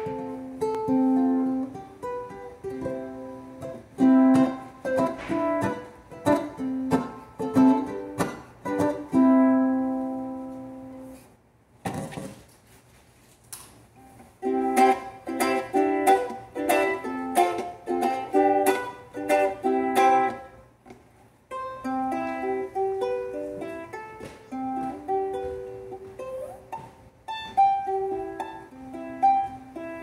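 Cigar box ukulele played solo: a tune of plucked notes and strummed chords, with a pause of about a second partway through and a stretch of dense chord strokes after it.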